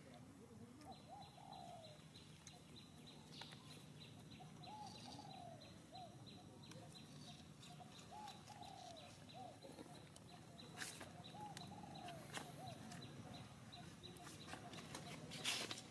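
Faint animal calls: short rising-and-falling notes in little groups of two or three, repeating every few seconds. Under them runs a thin steady high tone, and a few sharp clicks come near the end.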